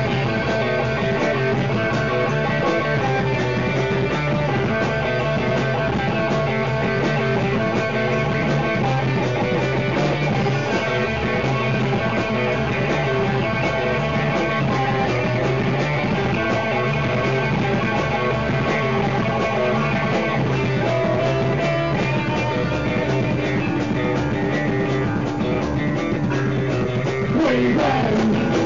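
Punk rock band playing, guitar-led, with a steady beat; the arrangement shifts near the end.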